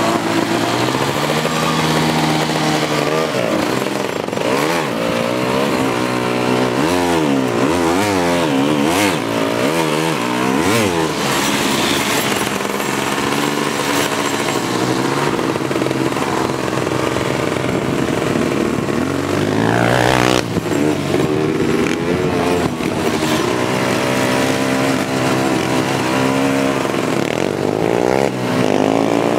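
Small four-wheeler (ATV) engine running under the rider, its pitch rising and falling over and over as the throttle is worked. About two-thirds of the way through comes a sharp, brief higher rev.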